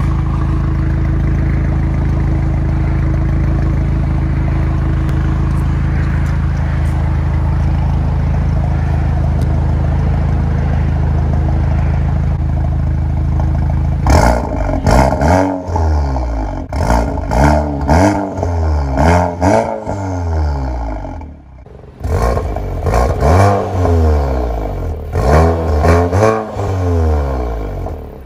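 MK7.5 Golf R's turbocharged 2.0-litre four-cylinder through a valved Remus cat-back exhaust and Integrated Engineering downpipe, idling steadily for the first half. About halfway through, with the exhaust valves open and pops and bangs off, it is revved in a string of quick throttle blips, pitch rising and falling each time. After a short lull a second run of blips follows.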